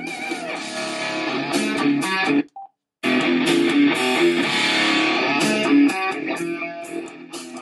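Guitar music playing through a small USB-powered mini PC soundbar (Nylavee SK001), fed from a tablet's headphone jack. The music cuts out for about half a second about two and a half seconds in, then comes back loud.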